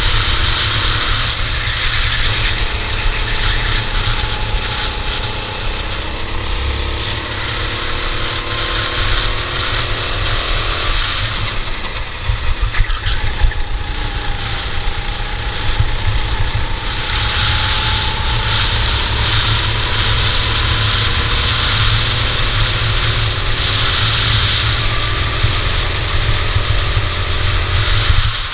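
Racing kart engine running hard, its note rising and falling as the kart accelerates and slows through corners, over a heavy rumbling wind noise. A few sharp knocks come about halfway through.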